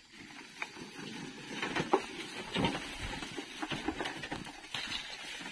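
A metal wheelbarrow loaded with oil palm fruit bunches is pushed over grass, with footsteps: irregular rustling and light knocks and rattles as it rolls.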